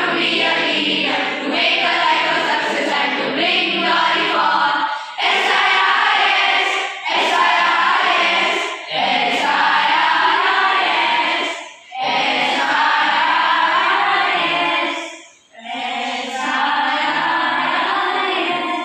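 A group of schoolchildren singing together in unison, in phrases separated by short breaths, with a longer pause about fifteen seconds in.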